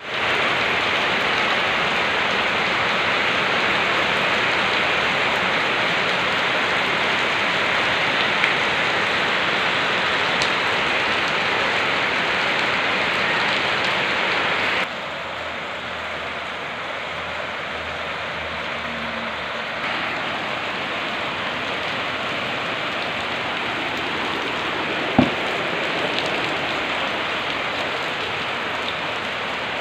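Rain falling steadily on paving and puddles, an even hiss. It drops a little in level about halfway through, and a single sharp tap sounds near the end.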